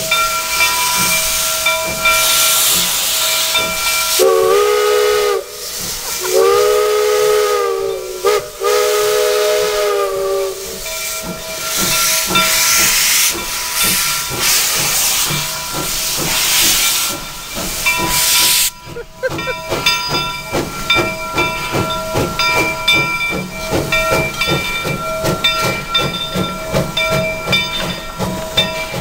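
Steam locomotive venting steam with a loud hiss and sounding its chime whistle in three blasts, a short one and then two longer ones. The hiss cuts off sharply about two-thirds of the way through, and a fast rhythmic beat follows as the train rolls past.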